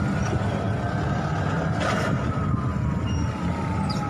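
Emergency-vehicle siren wailing, its pitch holding and then falling slowly in the second half, over a steady low rumble of traffic and engines, with a brief sharp noise about two seconds in.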